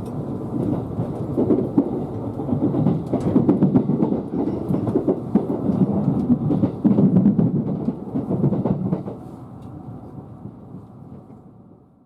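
Running noise heard inside a JR Kyushu 787 series electric train car on its approach to the terminal: a steady rumble with the wheels clacking over rail joints. It fades away over the last three seconds.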